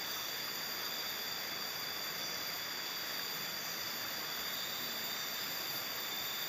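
Steady hiss of outdoor background noise, with several faint, steady high-pitched tones over it and no distinct events.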